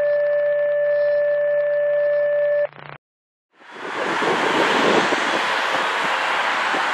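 A steady electronic intro tone over a low hum, which cuts off sharply under three seconds in. After a brief silence, steady roadside traffic noise fades in and stays loud.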